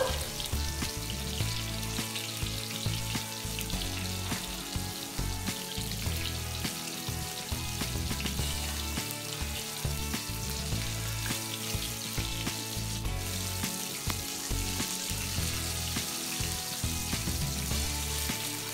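Flour-coated chicken wings deep-frying in hot oil in a wok, a steady sizzle, with background music underneath.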